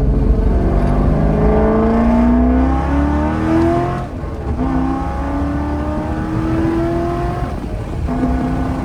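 C5 Corvette's 5.7-litre V8 accelerating hard, the engine note climbing in pitch through each gear. It drops back at upshifts about four seconds in and again near the end.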